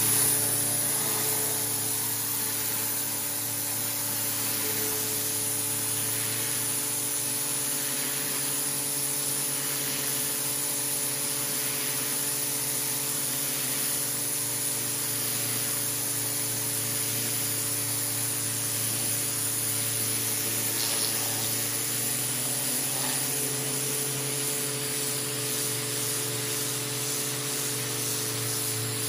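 Gerni pressure washer running steadily: a motor hum under the hiss of water from a rotating jet nozzle spraying onto a concrete path.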